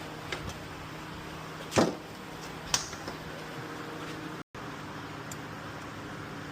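Hand work on a car's engine bay: a loud knock just before two seconds in and a sharper click a second later, with a few lighter clicks, over a steady low hum. The sound cuts out completely for a moment about four and a half seconds in.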